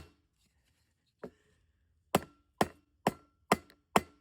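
Repeated hard blows smashing a budget rifle-mounted light and laser combo, about two a second: one strike at the start, a lighter one about a second in, then a run of five sharp strikes.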